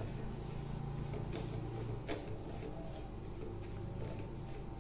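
Fingers mixing a dry masala of fine semolina (rava) and spice powders in a steel bowl: gritty rubbing and scraping of the powder against the metal, with a couple of light knocks, over a steady low hum.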